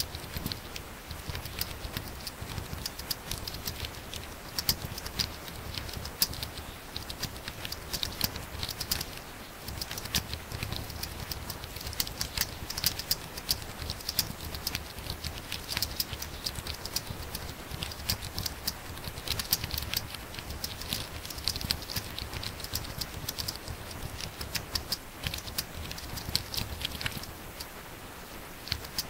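Very fast typing on a laptop keyboard: a dense, continuous patter of key clicks, with a short lull near the end.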